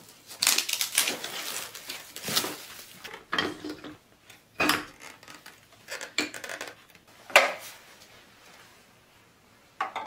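Plastic wrap crinkling and hard plastic fan parts knocking and clicking as a Dyson Cool bladeless fan is unwrapped and its tall loop fitted onto the base, in irregular bursts with the sharpest knock about seven seconds in.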